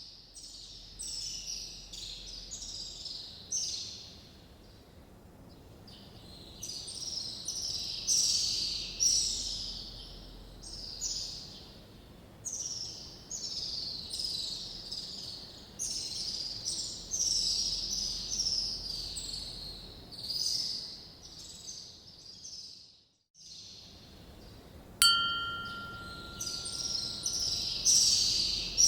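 A dense chorus of many small birds chirping and twittering, with a brief dropout partway through. Near the end a single clear, pitched note rings out for a few seconds over the chirping.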